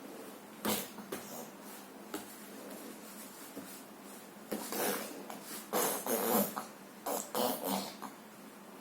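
Child making fart noises with her mouth, a series of short sputtering raspberries coming in irregular bursts, most of them in the second half.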